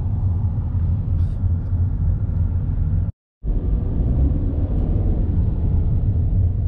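Convertible Ford Mustang driving along the road: a steady low rumble of car and road noise. The sound cuts out completely for a moment about three seconds in, then carries on as before.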